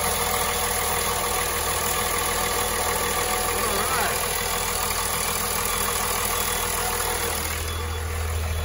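Cummins 5.9 24-valve inline-six turbo diesel idling steadily, freshly started. Near the end it turns duller and boomier as it is heard from the driver's seat.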